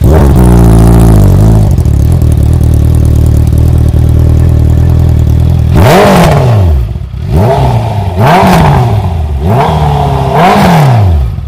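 Honda CBR650F inline-four motorcycle engine, fitted with an Akrapovic full-system exhaust, catching and flaring, then settling to a steady idle within about two seconds. In the second half it is revved in a run of short throttle blips, each rising and falling quickly. The exhaust note is very loud.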